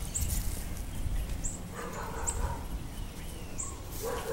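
Outdoor background sound: a few short, high chirps, and an animal calling about two seconds in and again near the end.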